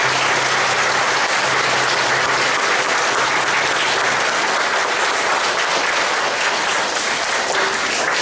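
A hall full of children applauding: steady, dense clapping that keeps up at an even level throughout.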